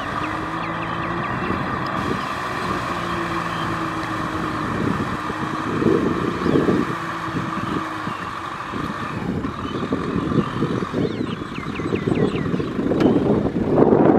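Kubota M6040SU tractor's four-cylinder diesel engine running steadily under load, driving a rear rotary tiller that churns wet soil, with irregular knocks. It grows louder near the end as the tractor comes close.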